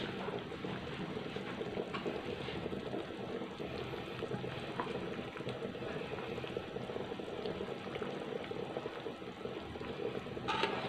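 Asam pedas fish gravy bubbling steadily at a simmer in an aluminium wok while a metal ladle is stirred through it, with a few light clicks of the ladle against the pan and a louder knock near the end.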